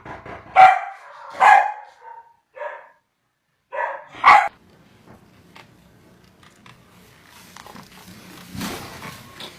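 A dog barking, about five short barks in the first four and a half seconds, then quieter shuffling noise.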